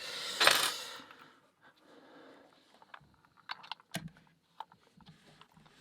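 A short loud rustling rush, then a scatter of small light clicks and taps as the padlock's small pins and parts are handled.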